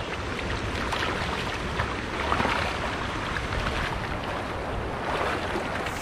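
Water splashing and churning as tilapia thrash inside a cast net in a shallow river, a steady mix of small splashes over a low wind rumble on the microphone.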